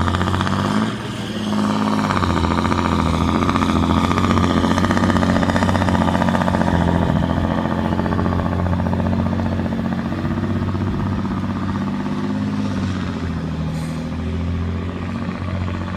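John Deere 8530 tractor's six-cylinder diesel engine running hard under full load while pulling a weight sled. It dips briefly about a second in, then holds a steady drone that slowly fades as the tractor pulls away.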